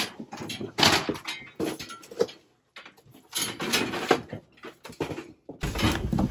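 Cardboard boxes and plastic storage bins being shifted and handled: an irregular run of rustles, scrapes and knocks.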